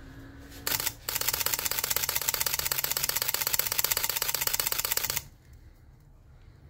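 Sony A7 III mechanical shutter firing in a continuous high-speed burst: one short sound, then a rapid even run of clicks at about ten a second for about four seconds that stops abruptly. It is the test of the freshly repaired shutter, now working.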